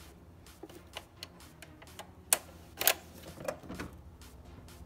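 Clicks and clatter of plastic hose fittings being worked loose with a screwdriver and an engine hose being pulled free. Scattered light ticks, then a few sharper clicks between about two and a half and three and a half seconds in.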